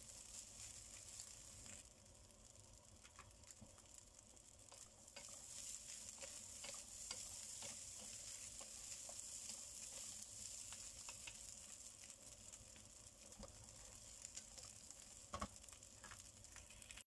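Fried rice sizzling faintly in a wok as it is stirred and tossed with wooden spatulas, with light scrapes and taps of the spatulas against the pan and one sharper knock near the end.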